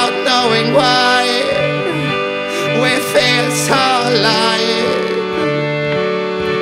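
Music: a voice singing with gliding, ornamented lines over sustained instrumental accompaniment and a low note repeating every half second or so.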